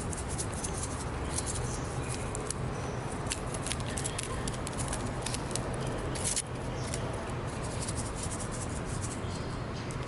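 Hash browns cooking in a pan over a campfire: a steady hiss with irregular crackles and pops throughout.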